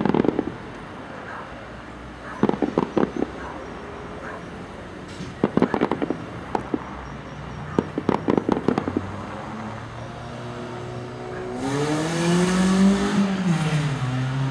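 Aerial fireworks crackling in four bursts of rapid cracks and pops, a couple of seconds apart. In the last few seconds a car passes close by, its engine rising and then falling in pitch.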